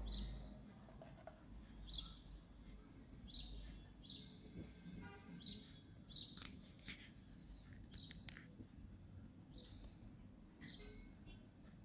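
A small bird chirping faintly, with a short high chirp about every second or two. There are a few light clicks about six to eight seconds in.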